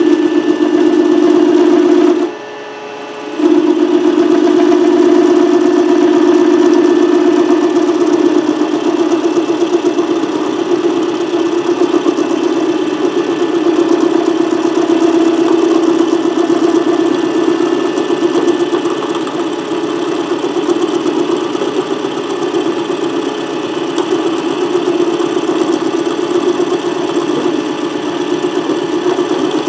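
Milling machine running a boring head, the boring bar cutting metal as the quill is fed down by hand: a loud, steady hum with a slight pulse. The sound drops away for about a second a couple of seconds in, then resumes.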